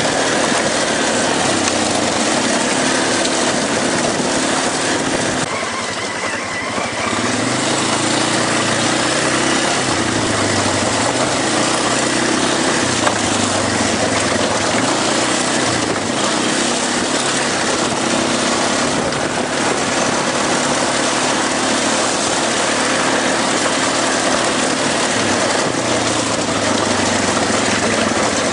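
ATV engine running while riding a gravel trail, its pitch rising and falling with the throttle, over a steady rushing noise. The engine eases off briefly about six seconds in.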